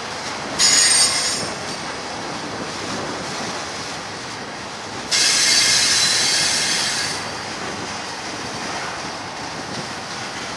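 BNSF double-stack container freight train rolling past, steel wheels on rail making a steady rumble. Two bursts of high-pitched metallic squeal from the wheels cut in suddenly: a short one about half a second in and a longer one of about two seconds around five seconds in.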